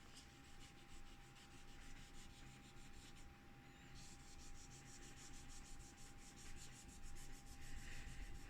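Faint, quick repeated rubbing strokes of a paper wipe scrubbing old thermal paste, softened with isopropyl alcohol, off a graphics card heatsink's copper contact plate.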